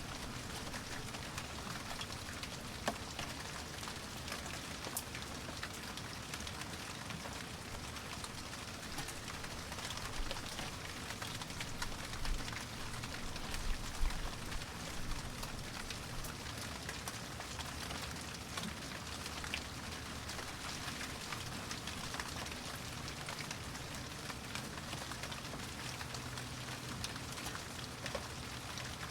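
Rain falling steadily: an even hiss with many individual drops ticking through it, a few louder drops now and then.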